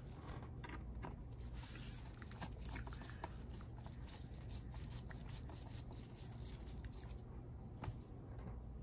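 Precision screwdriver driving small screws into a laptop's plastic bottom case: faint, irregular ticks and scrapes of the bit turning in the screw head, over a low steady hum.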